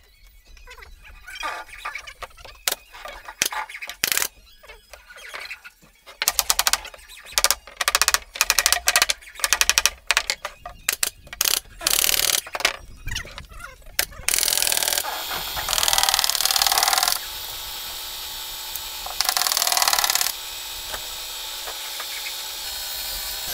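Pneumatic nail gun shooting nails into plywood speaker-cabinet panels: a long string of sharp shots, thickest through the middle. After that comes a steady drone with two loud rushes of noise, one about three seconds long and a shorter one a little later.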